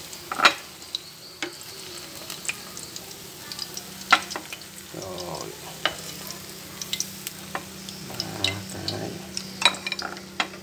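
Shrimp fritters frying in hot oil in a pan, a steady sizzle, broken by sharp clicks and taps as a utensil lifts the fritters out of the pan.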